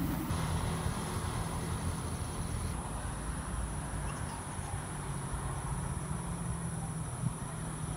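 Night insects, crickets, chirring in a steady high, even tone, over a low steady rumble.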